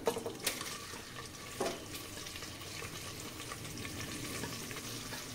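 Hot sunflower oil with whole spices (cinnamon, cardamom, cloves, cumin seeds) sizzling steadily in a pan on a gas stove, with a few light clinks of a utensil in the first two seconds.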